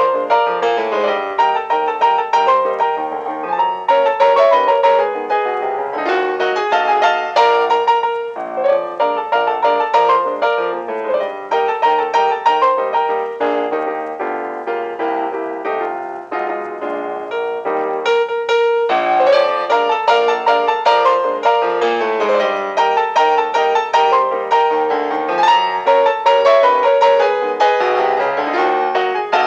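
Piano music with a quick, busy run of notes.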